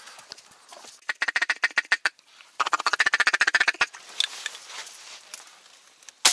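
Two rapid runs of duck quacking, each lasting about a second, followed by a single shotgun shot right at the end.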